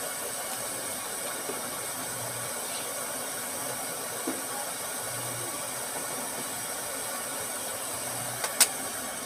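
Steady hiss of background noise, with one sharp click near the end.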